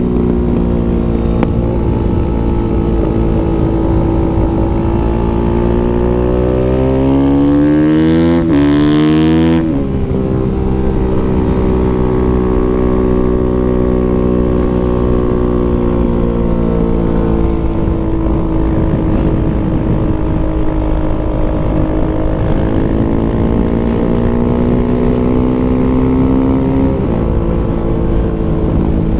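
Kawasaki KX450F's single-cylinder four-stroke engine running hard at track speed, with wind rushing over the microphone. The engine pitch climbs for a few seconds, breaks off abruptly about ten seconds in, then holds fairly steady with a slight rise and a drop near the end.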